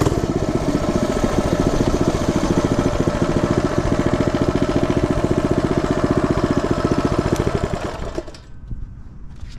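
A mini bike's 99cc four-stroke single-cylinder engine running steadily while it is ridden. Its sound falls away sharply about eight seconds in.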